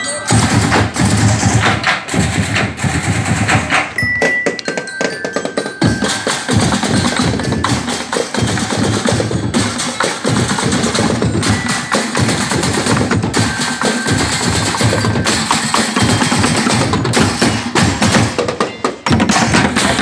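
Street percussion band beating drums made from plastic barrels with sticks, a loud, fast, continuous rhythm of many hits.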